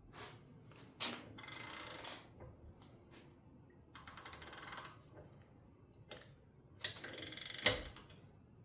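Digital torque wrench and socket on bolts clamped in a steel bench vise: sharp metal clicks, the loudest near the end, and three stretches of rapid ratchet clicking as bolts set with cured red thread locker are broken loose and backed out.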